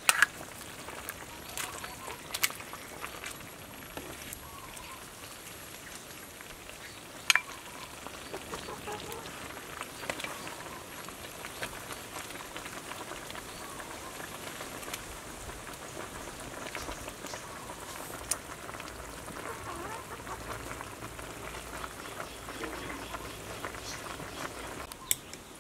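Soup being ladled out with a metal ladle: a handful of sharp clinks of the ladle against the pot and bowl, about five spread out, over a steady faint crackle and hiss.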